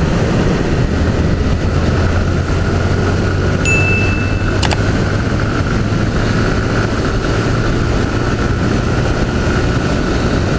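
Honda CG 160 Fan's single-cylinder four-stroke engine running under throttle while riding, with a fairly steady engine note and wind rush on the helmet microphone. A brief high tone sounds about three and a half seconds in and ends with a click.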